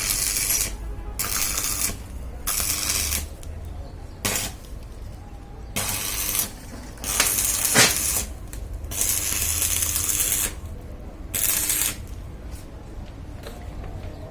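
Repeated rasping, scraping strokes, each lasting about a second with short gaps between, mixed with small metallic clinks and one sharper click about eight seconds in: hand work on metal parts.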